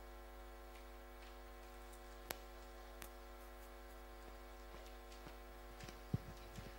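Quiet room tone with a steady hum, broken by a faint click about two seconds in, another a second later, and a few soft knocks near the end.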